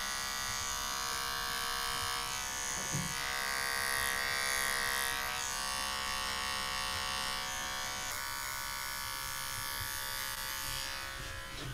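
Small electric pet trimmer running with a steady buzz while it trims the fur around a cat's paw pads.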